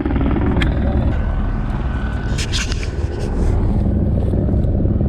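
Helicopter running with a steady low rotor and engine drone, with a few light clicks about half a second in and again around two and a half seconds in.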